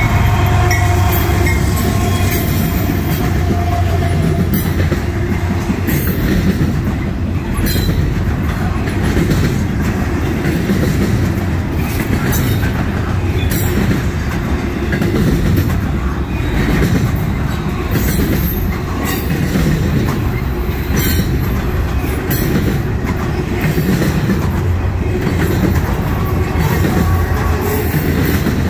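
Double-stack intermodal freight train rolling past close by: a steady low rumble of steel wheels on rail, with sharp clicks and squeaks from the wheels every second or two. The lead Norfolk Southern diesel locomotives pass at the start, giving way to the stack cars.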